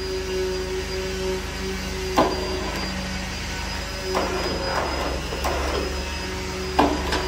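Steady hum of workshop machinery running, with two sharp knocks, one about two seconds in and one near the end, and softer clatter in between as a hoisted log and its chain are handled.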